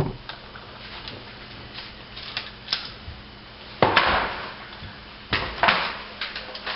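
Nerf blaster handled and fired: scattered plastic clicks and knocks, with two louder sharp noisy bursts about four and five and a half seconds in.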